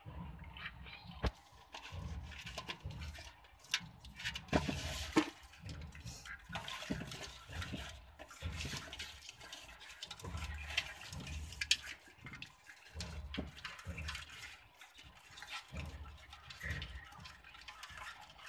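A hand splashing and rummaging in shallow water in a basin of live crabs, with irregular sharp clicks and scrapes of shells and legs throughout.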